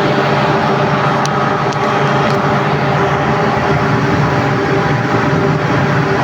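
An industrial compressor and its drive running steadily and loudly, with several fixed hums over a dense machine noise. A few faint sharp ticks sound between about one and two and a half seconds in.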